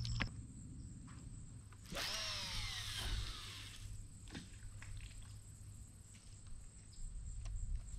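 Baitcasting reel spool spinning as line pays out on a cast: a whirring whine that starts about two seconds in and falls in pitch over about two seconds as the spool slows, followed by a few light clicks.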